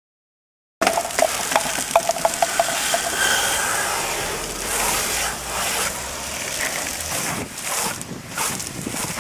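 Liquid spraying steadily onto a car with a continuous hiss, with a few sputtering clicks in the first couple of seconds.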